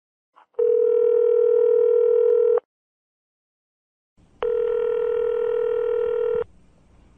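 Telephone ringing tone heard on the line: two long, steady beeps of about two seconds each, with a pause of about two seconds between them. Faint background noise follows the second beep.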